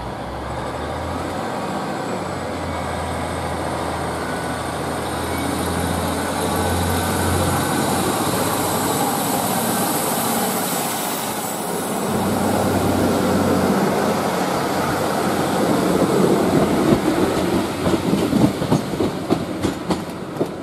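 Class 156 diesel multiple unit running along a platform: a low steady engine drone, then a thin high whine that rises in pitch, then a run of rhythmic wheel clicks over the rail joints, growing louder near the end as the carriages pass close by.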